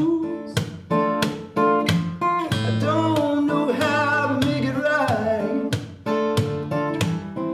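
Acoustic guitar strummed in a steady rhythm of chords, with a man's singing voice coming in over it around the middle.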